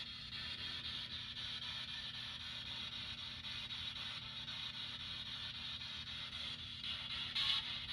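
Steady low hum under a steady hiss, the room tone of a small furnace room, with a brief louder swell of hiss near the end.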